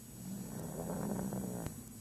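Snoring: one long snore lasting about a second and a half, stopping shortly before the next breath.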